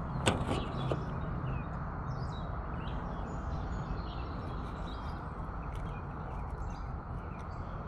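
Steady outdoor background noise with faint, short bird chirps scattered through, and one brief sharp knock just after the start.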